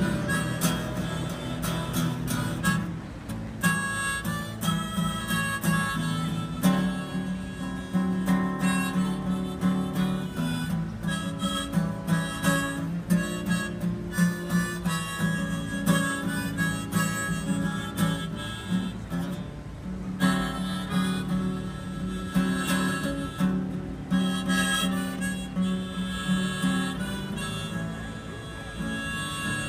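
Blues harmonica played in a neck rack over a strummed acoustic guitar, in a steady rhythm with no singing.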